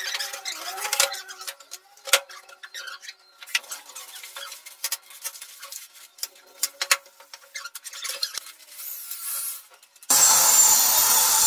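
Scattered light clicks and taps of hinge hardware being handled on cabinet doors. About ten seconds in, an electric drill starts abruptly and runs loud and steady, drilling into a laminated board.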